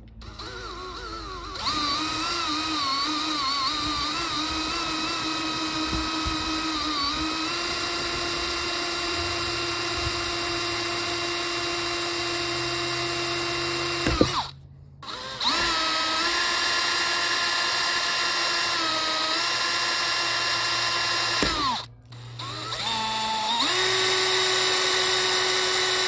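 Cordless drill cutting a 7/16-inch hole through a car's plastic rear hatch: a steady motor whine, wavering in pitch at first. It stops briefly twice and starts again.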